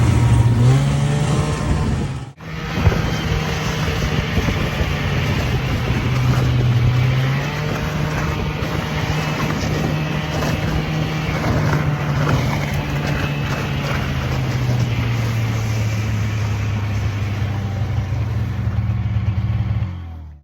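A vehicle engine running steadily under way, its pitch stepping up and down a few times with throttle changes. It is briefly cut about two seconds in and stops at the end.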